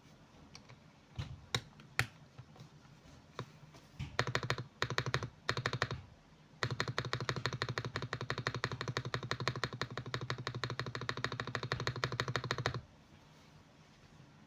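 Mechanical keyboard with lubed Akko switches being typed on. There are a few single keystrokes, then short quick bursts, then about six seconds of fast continuous typing that stops shortly before the end.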